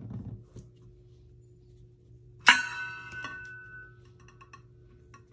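A sharp clink about halfway through that rings on for over a second, as a bottle knocks against the glitter-coated water-bottle tumbler, followed by a few light taps and clicks of glitter bottles being handled. A soft thud right at the start as a bottle is set down.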